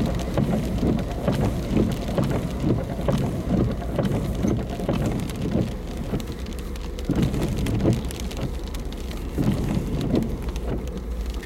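Heavy monsoon rain pelting down in gusty wind, a dense, uneven patter of drops hitting a surface.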